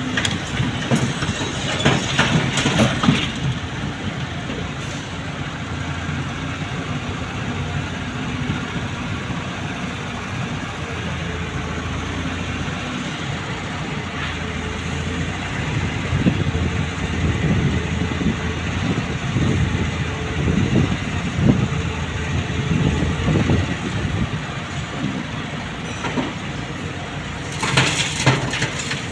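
Volvo wheel loader's diesel engine running under work, a steady low rumble that swells in uneven louder spells about two seconds in, through the middle and near the end.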